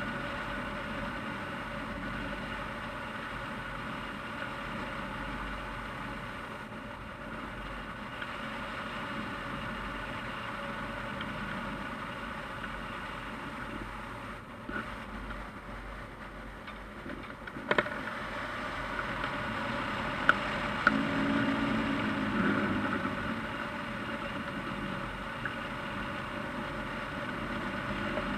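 Steady rush of airflow and wind over a hang glider in flight, heard on the glider-mounted camera's microphone. A few sharp clicks or knocks come about two-thirds of the way through.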